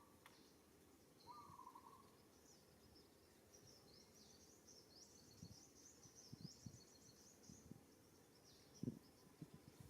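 Faint outdoor ambience with birds chirping: quick high chirps through the middle and a short trilling call about a second in, over soft, scattered low knocks and rustles.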